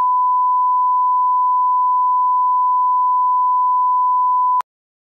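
Steady 1 kHz line-up test tone of a broadcast bars-and-tone leader, a single unwavering pure beep that cuts off suddenly about four and a half seconds in.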